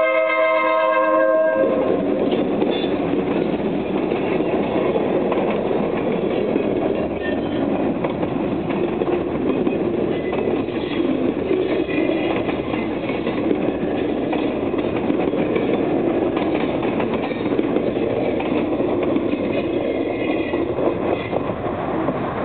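A diesel locomotive's horn sounds a chord of several notes and cuts off about a second and a half in. It gives way to the steady rolling noise of a freight train's flatcars, loaded with poles, passing over the rails, with faint high squeals now and then.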